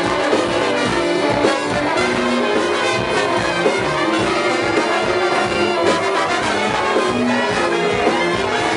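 A musical ensemble playing, with brass instruments such as trombone and trumpet to the fore over a steady pulse.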